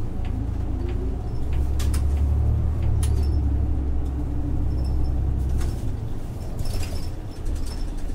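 Isuzu Erga city bus's 6HK1-TCC diesel engine and its Allison five-speed automatic, heard from inside the cabin: a deep engine drone that swells about a second and a half in, holds under load, then eases off near the end, with scattered rattles and knocks from the body.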